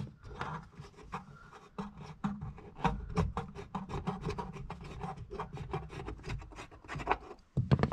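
Screwdriver backing out the screws of a parking-brake release handle under a car's dashboard: a quick, irregular run of small clicks and rasping.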